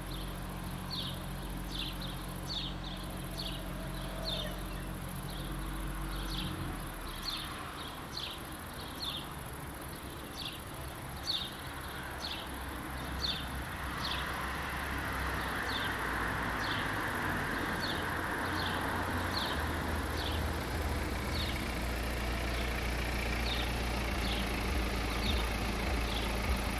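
Short high chirps, likely a bird's, repeat about twice a second at first and then more slowly. Under them a car engine idles steadily and stops about six and a half seconds in. Through the second half a low rumble and hiss slowly grow louder.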